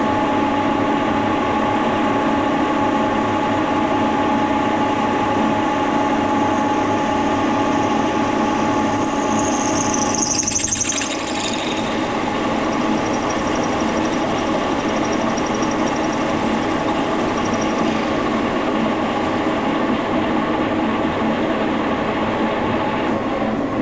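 Brown & Sharpe No. 2 milling machine running with its silent chain drive, a 9/16-inch drill cutting through tool steel: a steady mechanical hum with several constant tones. A brief high squeal from the cut comes about ten seconds in, after which the sound gets slightly quieter.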